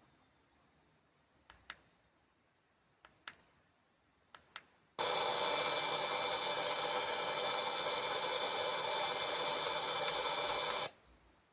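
A few sharp clicks, then a loud, steady buzzing hiss from a KLIM Boombox E1 portable boombox that starts suddenly about five seconds in and cuts off abruptly about six seconds later.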